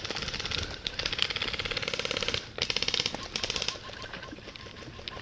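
Airsoft electric rifle firing on full auto, a fast rattle of shots in two bursts: one of about two and a half seconds, then after a short break a second of about one second.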